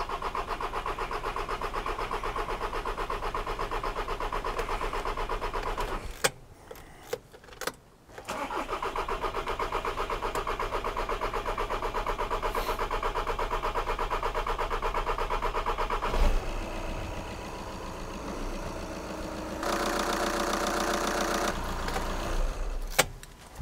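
Skoda Superb's 2-litre diesel engine cranking on the starter for about six seconds, then, after a short pause, cranking again for about eight seconds until it catches and runs. The fuel system has not been bled after a fuel filter change, so the long cranking is drawing the air out of the fuel lines. Once running, the engine gets louder for a couple of seconds, then stops shortly before the end.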